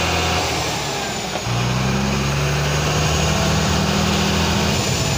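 Diesel engine of a Tata 3718 heavy truck idling, heard close to its exhaust pipe; its low hum changes about a second in, then runs steady.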